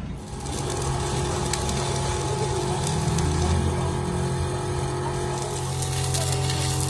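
Stick (arc) welding on a steel excavator boom: the arc crackles and sizzles steadily as the electrode runs along a plate seam. A steady low hum runs underneath.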